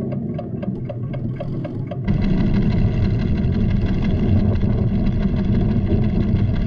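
Cartoon soundtrack: quick, even ticking of instruments over a low rumble, then about two seconds in a much louder, deep rumble of the volcano's tremor cuts in, with held orchestral notes over it.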